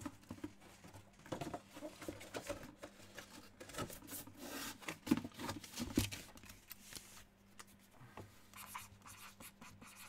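Pen scratching on paper as someone writes by hand, in short irregular strokes, with a couple of soft knocks of handling about five and six seconds in.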